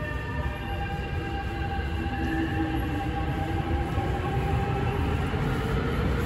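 Beijing Subway Line 15 electric train pulling out of the station and accelerating. The traction motors whine in several tones that slowly climb in pitch over a steady wheel rumble, growing gradually louder.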